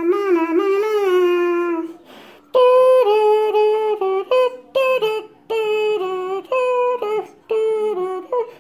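Music: a wordless melody of long held notes in a voice-like tone, stepping up and down, like humming or a synthetic voice, with a short break about two seconds in.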